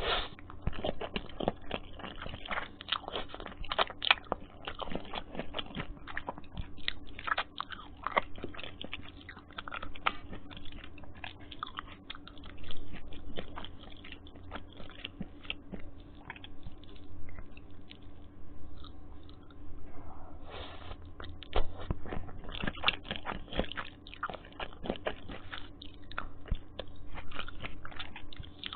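Close-miked chewing and biting of Maggi instant noodles, a dense run of small irregular clicks and smacks from the mouth.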